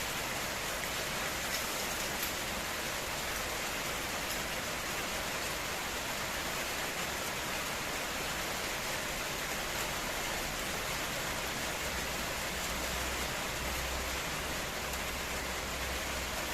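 Oil sizzling in a frying pan: a steady sizzle with a few faint pops.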